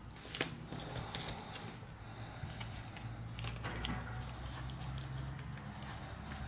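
A playing card and a plastic pry pick working under the edge of a cracked tablet touch-screen glass to cut its adhesive: scattered small clicks and short scrapes, with a low steady hum underneath.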